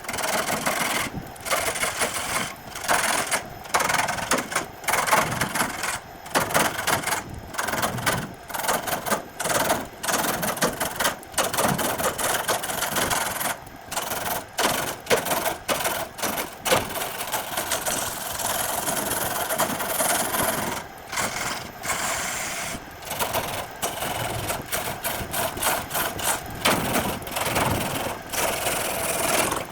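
Power tool noise: a machine running in irregular stretches, broken again and again by abrupt cuts and short gaps.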